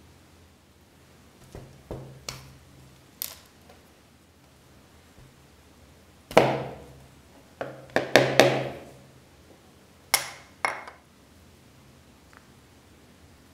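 Pliers and side cutters clicking and clinking against the metal pins of a knife's handle scales as the pins are worked out. Sharp metallic clicks at irregular intervals, each ringing briefly: a few light ones early, the loudest about six seconds in, a quick cluster around eight seconds and two more near the end.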